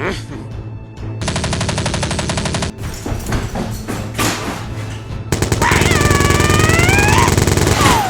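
Dubbed machine-gun fire sound effects in rapid bursts over background music. The longest and loudest burst comes in the second half, with a drawn-out yell over it.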